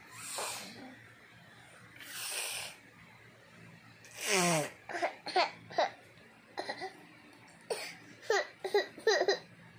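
A toddler giggling: a couple of breathy huffs, then a high falling squeal about four seconds in and a run of short, high-pitched giggles through the second half.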